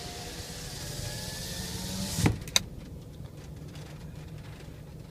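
Steady typhoon wind noise with a low hum, cut off about two seconds in by a heavy thump and then a sharp click, after which it is much quieter.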